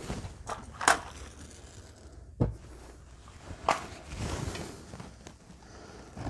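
A few sharp clicks and knocks, the loudest about a second in, with a low thump in the middle, as a match is struck and lit against the petrol in the burner of a BRS-8 multi-fuel stove.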